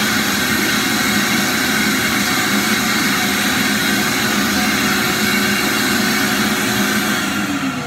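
Wet/dry shop vacuum running steadily, its wand drawn along the tile joints to suck up loosened grout. Near the end it is switched off and the motor winds down, falling in pitch.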